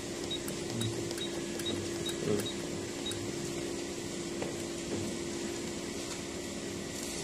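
Hemodialysis machine running while it primes the dialyzer with dialysate: a steady low hum, with a faint high tick about twice a second in the first few seconds.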